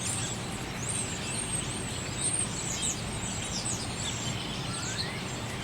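Small birds chirping, many short high chirps in quick succession, over a steady low background rumble.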